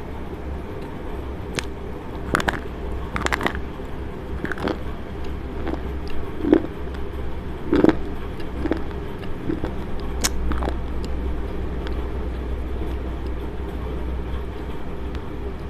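Slate pencil being bitten and chewed right at a clip-on microphone: a string of crisp crunches and snaps, most of them in the first ten or so seconds, then quieter chewing. A steady low hum runs underneath.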